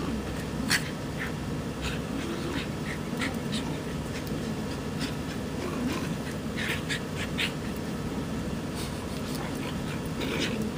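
Pomeranian and Papillon play-fighting, with low growling and short sharp scuffling noises scattered through.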